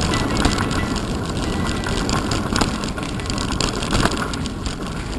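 Mountain bike ridden fast over a dirt trail, heard from a camera mounted on the bike: a steady rush of tyre and wind noise with rattling, and several sharp knocks as the bike jolts over bumps.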